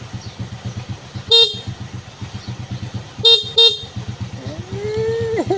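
A vehicle engine idling with a steady low pulse while its horn beeps briefly three times, two of them close together. Near the end a pitched whine rises and then wavers.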